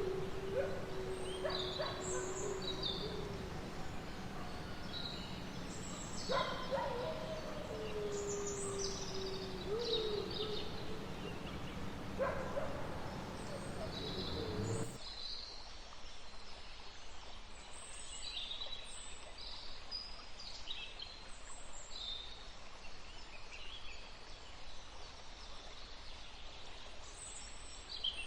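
Forest ambience of many birds chirping, with long, steady, wolf-like howls and a low rumble in the first half. About halfway through, the howls and rumble cut off abruptly and only bird calls over a light hiss remain.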